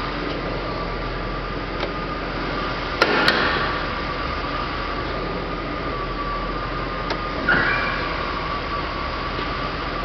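Knocks and bumps of someone climbing into the driver's seat of a 1981 Chevrolet Corvette: two sharp knocks about three seconds in and a heavier thump with a short squeak about halfway through, over a steady hum with a faint high whine.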